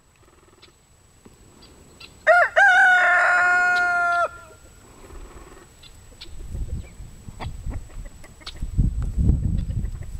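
Sebright bantam rooster crowing once, about two seconds in: a quick rising start, then a long held note of about two seconds that cuts off. Low rumbling noise follows in the second half.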